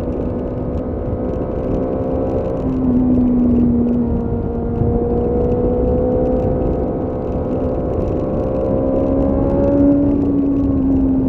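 BMW S1000R's inline-four engine running at fairly steady revs while riding, its pitch shifting a little about three seconds in and again near the end, over a steady low rushing rumble.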